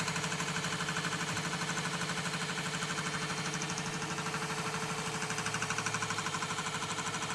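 Chinese 8-in-1 combination machine tool running steadily with a fast, even pulse while milling teeth into an aluminium toothed-pulley blank.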